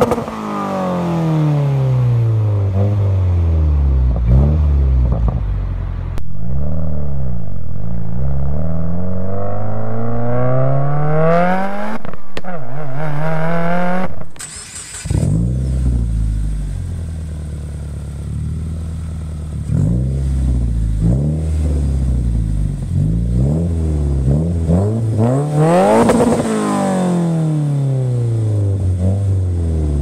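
Subaru WRX's turbocharged 2.0-litre flat-four revved repeatedly at a standstill through an X-Force cat-back exhaust on a catted J-pipe. It gives several quick rises and falls, then one long rev that climbs for several seconds. After a sudden cut about halfway, the same engine blips again through another aftermarket cat-back, with a big rev near the end.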